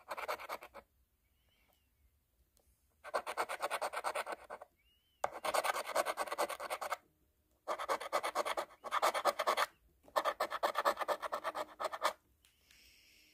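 A coin scratching the coating off a scratch-off lottery ticket: rapid back-and-forth scraping in bouts of about two seconds, separated by short pauses.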